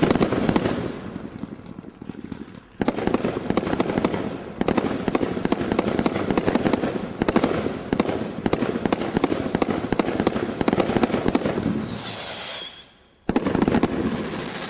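Cat 3 combination Roman candle barrage (metal cage cake) firing, with rapid volleys of shots and crackling star bursts coming in surges. A brief high tone sounds near the end, then a short lull and one last volley that fades out.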